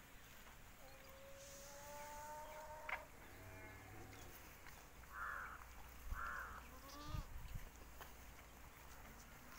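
Animal calls: one long call on a slowly rising pitch, then two short rough calls about a second apart, with a few soft low knocks near the end.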